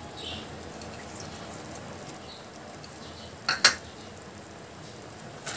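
A short clink of a metal utensil against the clay cooking pot about two-thirds of the way through, with a smaller one near the end, over a faint steady hiss.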